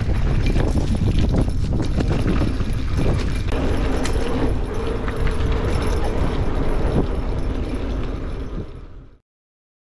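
Mountain bike being ridden over rough dirt: wind rushing on the microphone with the rattle and knocks of the bike over bumps. It fades out near the end.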